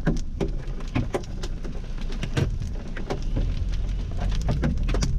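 Hailstones striking the car's roof and windshield in irregular sharp knocks, heard from inside the car, over a low rumble of engine and road noise that grows louder past the middle as the car pulls away.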